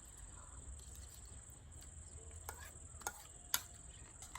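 Faint, steady high-pitched chirring with three short sharp clicks about two and a half to three and a half seconds in.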